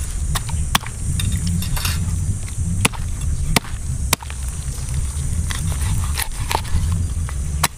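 Large knife scraping and cutting into a whole fish on a board, giving irregular sharp knocks and clicks about once a second, over a steady low rumble.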